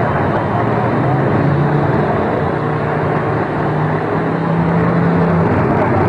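Several demolition derby cars' engines running hard at high revs, with one engine holding a steady high rev from about two seconds in until near the end.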